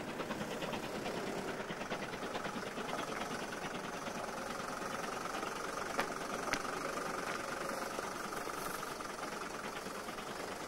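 BR Standard Class 7 'Britannia' steam locomotive 70000 working in the distance, its exhaust beats coming as a fast even chuffing that fades away as it pulls off. Two short clicks about six seconds in.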